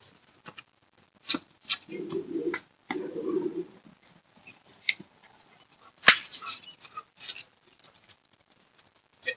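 Dove cooing in two stretches a couple of seconds in, among a few short sharp clicks and knocks.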